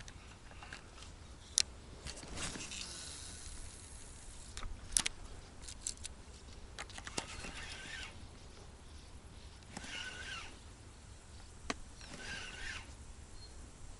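Spinning reel wound in short bursts with pauses between, a stepped jig retrieve, with a few sharp clicks in between; faint.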